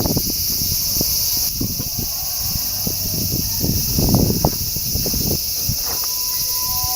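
Steady high-pitched insect chirring, with irregular low knocks and handling clatter under it.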